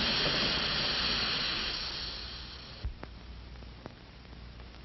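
A loud, even hiss that fades and then cuts off suddenly with a thump just under three seconds in, leaving only faint clicks.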